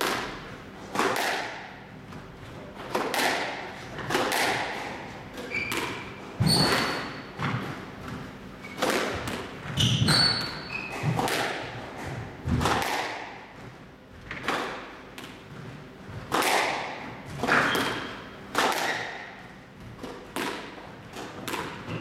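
Squash rally: the ball cracking off rackets and the front and side walls, about one shot a second, each hit echoing in the enclosed court. Short high squeaks of court shoes on the floor come in between.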